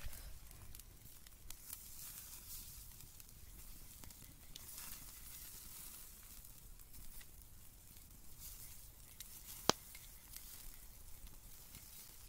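Faint sizzling and crackling of chicken legs grilling on a wire mesh over a small wood fire, with scattered small pops and one sharp click a little under ten seconds in.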